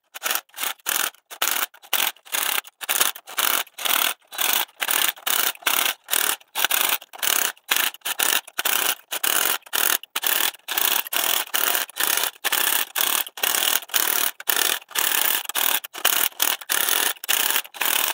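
Small cordless impact driver hammering in short trigger bursts, about two to three a second, slowly crawling in the bolts that press a new rear main seal wear ring onto a 7.3 Power Stroke diesel's crankshaft.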